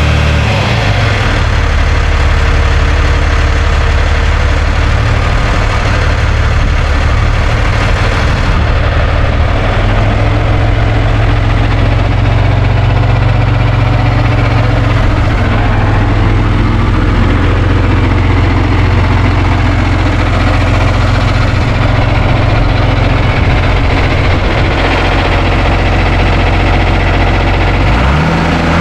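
John Deere 2840 tractor's six-cylinder diesel engine running steadily, its note changing about eight seconds in and again near the end. It is being run to try out the hydraulics after the suction screen was cleaned and a new filter fitted.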